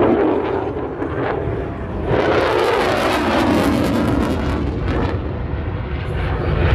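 Jet aircraft flying past: a loud rushing roar that swells suddenly about two seconds in.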